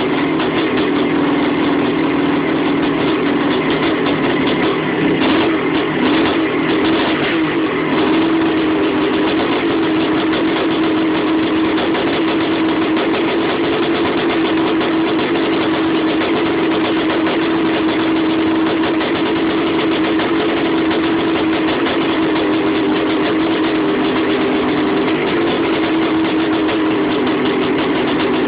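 Suzuki RM500's two-stroke single-cylinder engine running steadily on the stand, just rebuilt and on its first run since. Its pitch wavers briefly a few seconds in, then holds steady.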